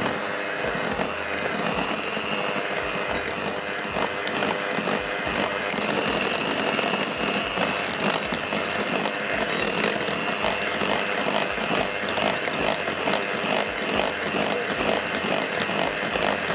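Electric hand mixer running steadily with a fast rattle, its beaters working through a thick mix of cream cheese, vanilla pudding mix and icing sugar in a glass bowl.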